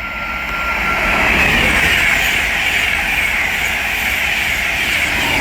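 LNER InterCity 225 express, a Class 91 electric locomotive with Mark 4 coaches and a driving van trailer, passing at speed: a steady rush of wheel and air noise that swells over the first second or so, holds, and eases off near the end.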